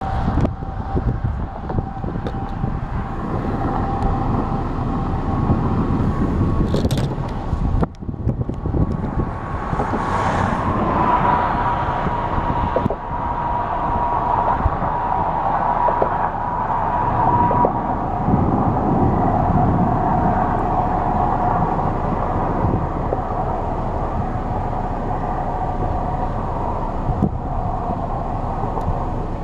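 Road traffic passing: a continuous low rumble with a steady high hum that swells about ten seconds in, and again past the middle.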